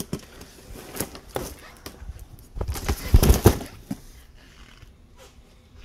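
Scattered light knocks and clicks of handling noise, with a louder cluster of rustling thumps about three seconds in.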